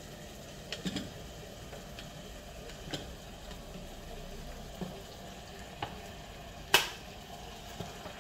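Marinated lamb pieces being scraped with a wooden spatula off a plate into a steel pot of frying onions: a faint steady sizzle with scattered clicks and knocks of spatula and plate against the pot, one sharp knock near the end being the loudest.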